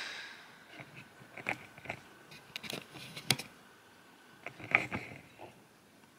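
Handling noise: a short breath out at the very start, then scattered light clicks, taps and scrapes, the sharpest about three seconds in and near five seconds, as the phone is handled and turned.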